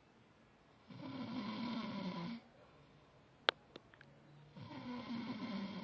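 A man snoring: two long snores, each about a second and a half, with a quiet gap between them. A single sharp click sounds in the gap, followed by two fainter ticks.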